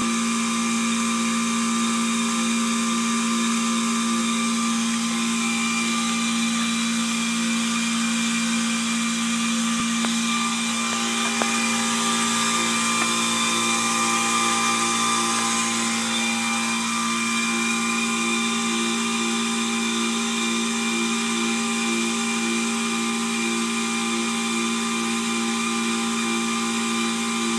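Air conditioner running a steady motor whir while it is switched off, with a strong hum and a second tone that pulses regularly. This is a noise the unit should not make when off.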